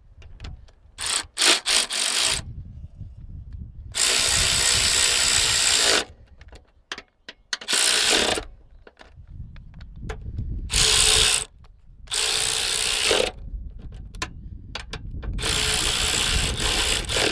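Durofix 3/8-inch brushless cordless ratchet driving door hinge bolts back in. A few quick trigger taps come about a second in, then five separate runs of one to two seconds each, with pauses between.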